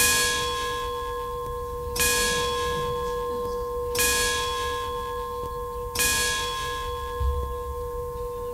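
A bell struck four times, evenly about two seconds apart, each stroke ringing on so that its tone carries without a break.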